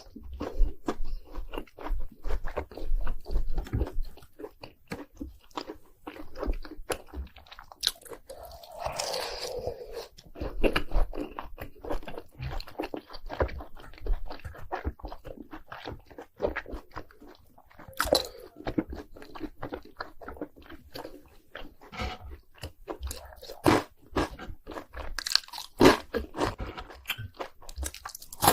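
Crunchy bites into fried cheese balls coated in crushed Hot Cheetos, followed by chewing, with dense crisp crackles and a few louder crunches.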